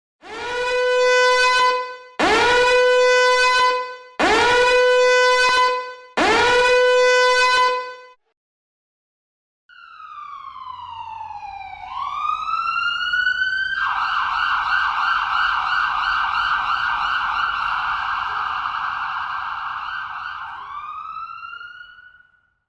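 Electronic emergency-vehicle siren effects: four separate blasts about two seconds each, every one rising quickly to a steady, buzzy tone and stopping abruptly. After a short pause, a siren sweeps down, then up into a fast yelp warble lasting about six seconds, dips and rises once more, and cuts off.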